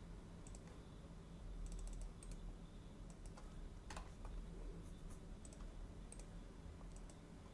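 Faint, scattered clicks of a computer keyboard and mouse, a few keystrokes at irregular intervals.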